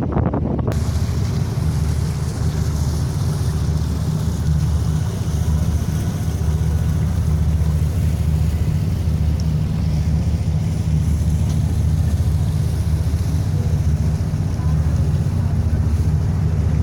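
Engines of a high-speed passenger ferry running at cruising speed: a loud, steady low drone.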